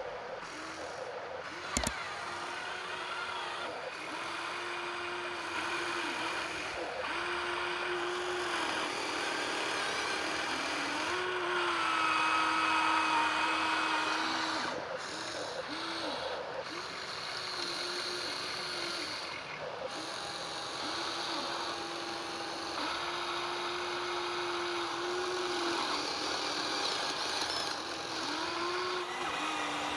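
Small electric motors of radio-controlled model construction vehicles whining, the pitch stepping up and down every second or two as they speed up, slow and stop.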